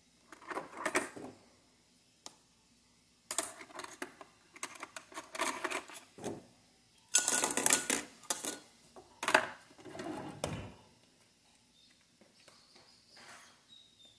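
Metal spoons clinking and clattering on a stainless steel countertop as they are set down and picked up, in several short bursts.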